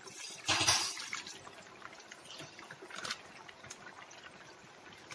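Milk poured from a plastic packet into a pan of thick curry masala, trickling and splashing as the packet is squeezed empty. A short, loud noise about half a second in, and a smaller one about three seconds in.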